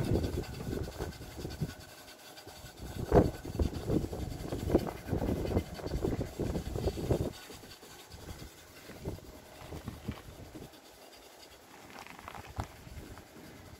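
Boat and trailer being towed up the launch ramp: an irregular low rumble with a run of knocks and jolts, busiest in the first half and quieter near the end.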